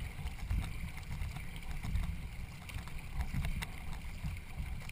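Wind buffeting the microphone over water noise from a boat under way during a canoe race, with scattered light clicks.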